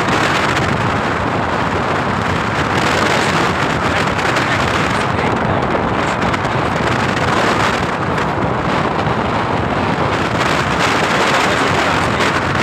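Steady road and wind noise inside a vehicle driving at speed, with wind rushing over the microphone.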